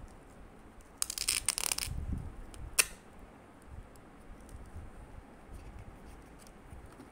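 Laminated paper labels being handled and pressed onto a binder page: a brief crackling rasp about a second in, then one sharp click, followed by faint rustling.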